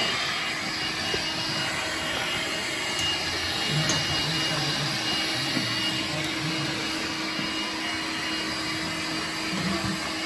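Vacuum cleaner running steadily, a continuous motor whine and rush of air with a thin high tone.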